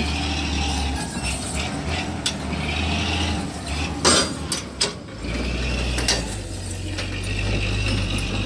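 Sand truck's engine running steadily as its tipper bed is raised to dump the load, with metallic clanks and rattles, the loudest a sharp knock about four seconds in. The engine note turns deeper about five seconds in.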